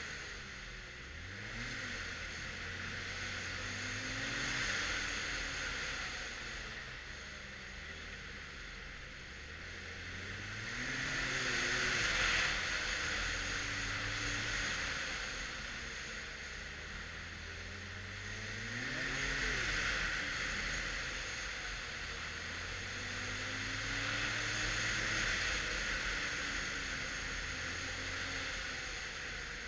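2013 Arctic Cat XF 1100 Turbo snowmobile's turbocharged four-stroke three-cylinder engine under way, revving up and easing off about five times, loudest around the middle and two-thirds of the way in. A rushing hiss swells and fades along with the speed.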